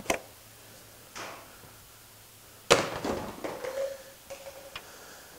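Knocks and clicks of parts being handled as a rubber intake hose and its bracket are pulled off a Volkswagen 1.6 diesel engine, with one sharp knock a little under three seconds in.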